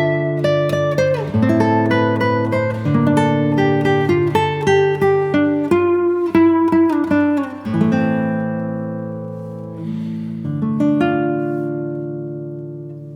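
Background music of plucked acoustic guitar notes and chords; in the second half a strummed chord rings and slowly fades.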